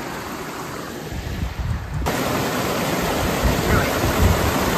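Rushing creek water cascading over rocks in a steady rush that becomes louder and fuller about two seconds in, with low rumbles of wind on the microphone.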